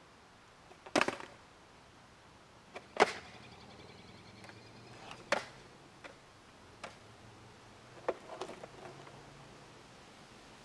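Sharp, spaced-out clacks of a 7.4-inch freestyle skateboard's wooden deck and wheels hitting asphalt as freestyle tricks are flipped and landed. There are about six knocks, the loudest a third of the way in and a quick pair near the end.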